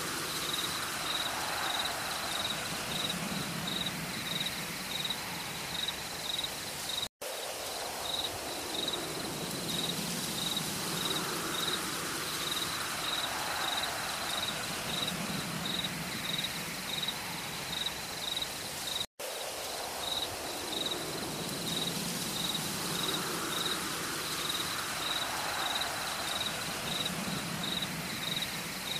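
Forest ambience: an insect chirping steadily at about two chirps a second over a soft hiss, with low hoot-like calls recurring every couple of seconds. The sound cuts out briefly twice, about 7 and 19 seconds in.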